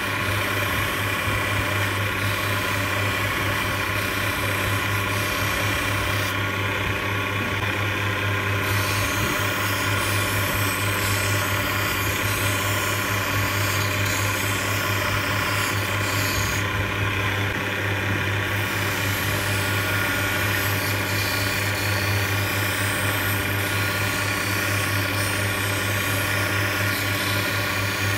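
Optician's hand edger running steadily, its abrasive wheel grinding the edge of a plastic eyeglass lens held against it by hand, over a constant motor hum. The grinding hiss thins out twice for about two seconds.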